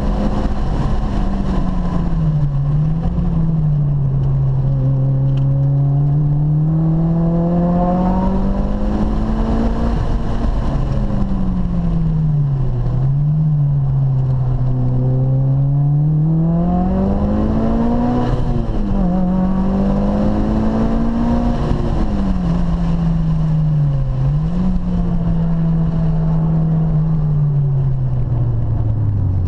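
Car engine heard from inside the cabin, its note climbing under acceleration and falling away off the throttle. The pitch jumps sharply at several gear changes, about three seconds in, near halfway and twice later on.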